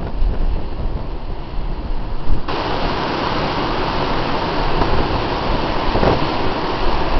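Storm wind buffeting the microphone over the sea's noise. About two and a half seconds in, it switches abruptly to a steadier, brighter rushing.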